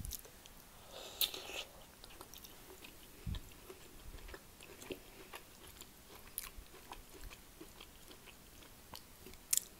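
Close-miked chewing and biting of a mouthful of gravy-covered broccoli: quiet scattered mouth clicks and crunches, with a sharper crackle a little after a second in and another near the end.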